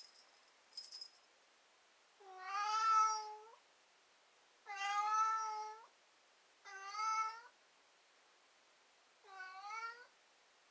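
Domestic cat meowing: four drawn-out, whining calls, each about a second or a second and a half long, a second or two apart.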